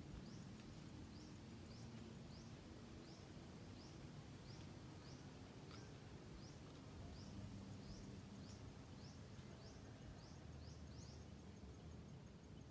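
Faint outdoor ambience: a low, steady background rumble with a short, high, upward-sliding chirp repeated about twice a second, and a faint rapid pulsing tone joining near the end.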